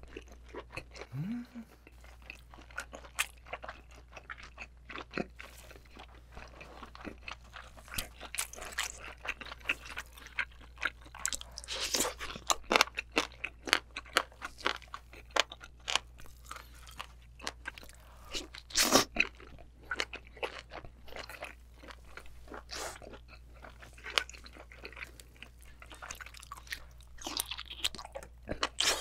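Close-miked chewing of a big mouthful of spicy braised abalone and rice: wet mouth sounds with many sharp crunchy clicks, one louder cluster of crunches around the middle. A brief rising hum comes about a second in.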